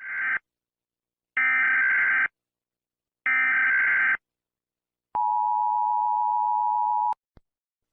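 Emergency Alert System SAME header: three bursts of buzzy data tones, each about a second long (the first cut short), followed by the steady two-tone EAS attention signal held for about two seconds and cut off abruptly.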